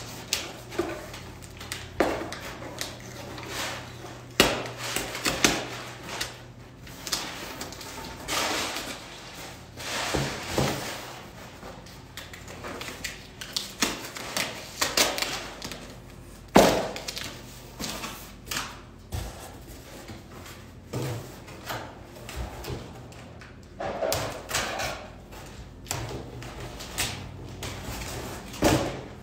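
Packing tape being pulled and torn off a large cardboard shipping package by hand, with cardboard rustling and scraping and occasional sharp knocks as the board is moved. Irregular noisy bursts, one every second or two.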